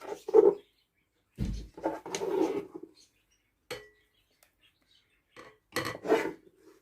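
Metal kitchen vessels and utensils being handled, clattering and scraping in several short bursts with pauses between them. A dull thump comes about a second and a half in.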